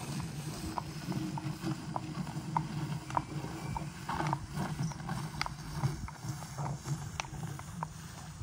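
A horse's hooves clip-clopping on an asphalt road at a walk, roughly two strikes a second, over the steady low scraping rumble of a rubber tyre dragged along the asphalt on a rope behind it.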